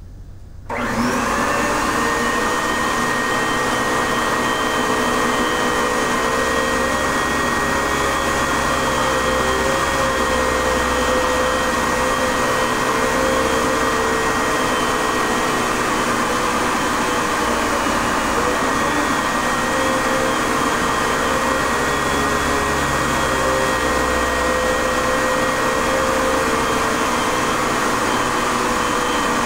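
A vacuum cleaner switches on about a second in and runs steadily, with a high whine over a motor hum whose lower tones waver now and then.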